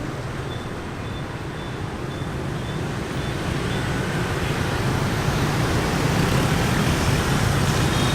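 Heavy rush-hour street traffic: a steady din of engines, slowly growing louder, with a short run of faint high beeps in the first few seconds.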